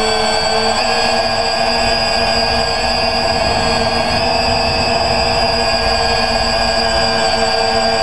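Quadcopter's electric motors and propellers running steadily in flight, heard from the onboard camera: a steady whine of several held tones over a rushing noise.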